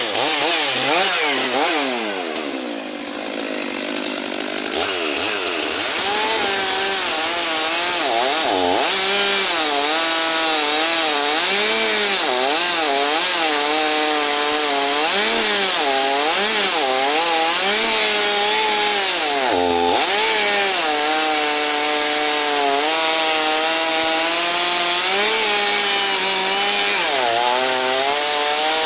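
Stihl MS 500i fuel-injected two-stroke chainsaw ripping wood lengthwise along the grain under full throttle. The engine pitch keeps rising and falling as the chain loads up and frees in the cut, with a deeper drop in revs about three seconds in.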